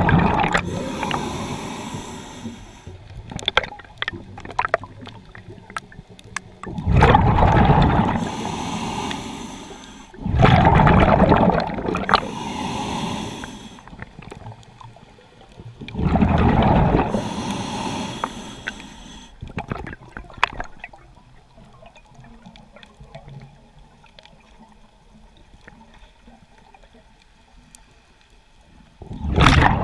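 Scuba diver's exhaled bubbles rushing from the regulator in five loud bursts a few seconds apart, heard underwater, with quieter breathing noise and scattered sharp clicks between them.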